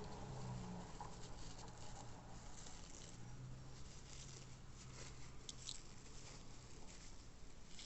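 Faint rustling and light clicks of hands handling a small diecast model car and its packaging.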